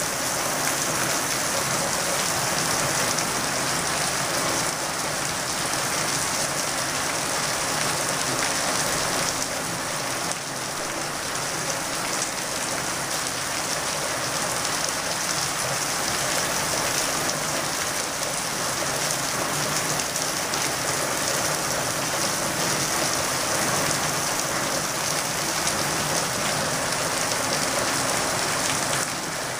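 Steady rain falling on wet concrete paving and a street, an even hiss of drops.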